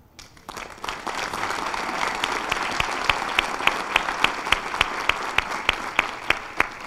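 Audience applauding, swelling up about half a second in and fading near the end. Over it, one person's hand claps close to the microphone ring out sharply and evenly, about three a second.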